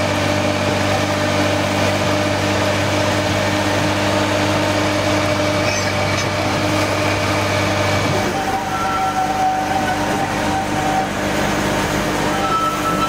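Hunslet diesel locomotive's engine running steadily as it hauls a narrow gauge train, heard close up. About eight seconds in the engine sound drops back, and thin high tones come and go.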